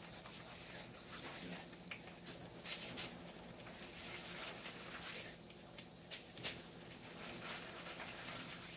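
Chicken party wings frying in a skillet of hot oil: a steady sizzle with a few sharp pops of spitting oil, the loudest about three and six and a half seconds in.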